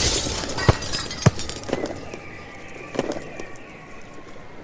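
Pigeons, with a few sharp wing claps and faint cooing, as the noise of the moment before dies away.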